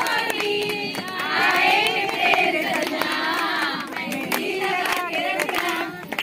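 A group of women singing together with hand claps.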